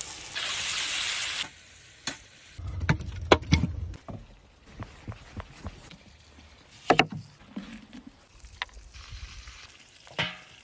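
A series of food-preparation sounds: about a second and a half of hissing at the start, then knocks and thuds of knife work on a pumpkin on a wooden board, and a clunk near the end as a stone is set on a metal pot lid.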